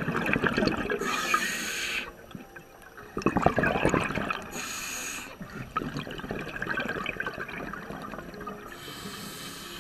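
Scuba breathing through a regulator underwater: about three breaths, each a short hiss of inhaling, followed by a gurgling rush of exhaled bubbles.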